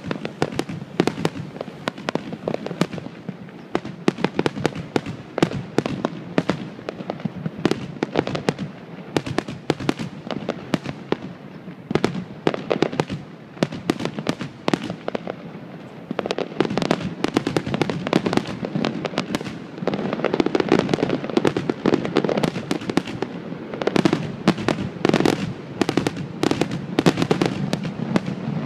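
Aerial fireworks display: a dense, rapid run of popping and crackling from bursting shells, growing louder and busier a little past halfway.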